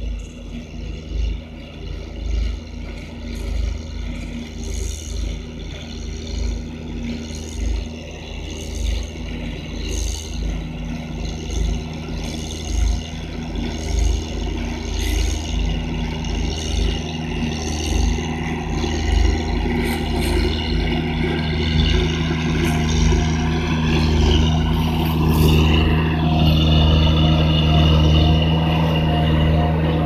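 CASE 450 DX mini tandem-drum road roller's engine running steadily as the machine drives across turf, growing louder as it approaches.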